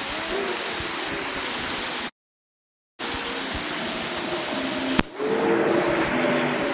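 Steady rush of a riffled trout creek's running water. It cuts out completely for about a second early in the middle, and a single sharp click comes about five seconds in.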